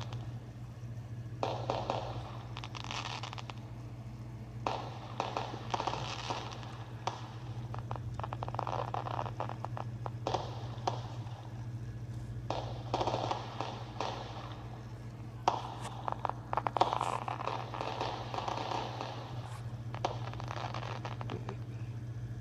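Ground firework going off with irregular crackling and popping that comes in waves, over a steady low hum.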